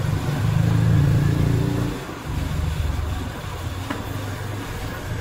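A low engine hum, loudest in the first couple of seconds, breaking off briefly and running on for a couple more seconds before fading, with one faint click near the end.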